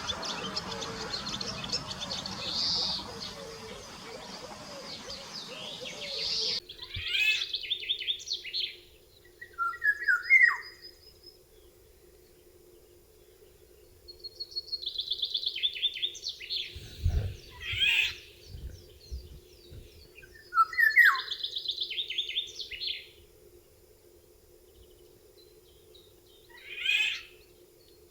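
Songbirds chirping and singing. About six seconds in, a noisy recording with high chirps gives way to a clearer one of fast trilled song phrases, repeated with pauses and mixed with short sharp calls, over a faint steady hum. There is one low thump partway through.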